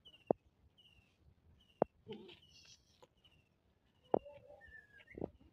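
A small bird chirps over and over, a short falling note repeating roughly every second or less. Four sharp clicks, the loudest sounds, fall through it, the first just after the start and the last near the end.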